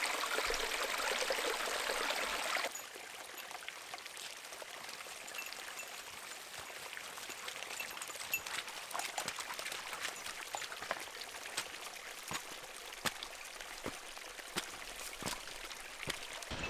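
A steady rushing hiss for the first few seconds, then quieter forest ambience with scattered snaps and crackles of footsteps pushing through undergrowth, coming more often and louder as a hiker with a heavy backpack approaches and passes close by.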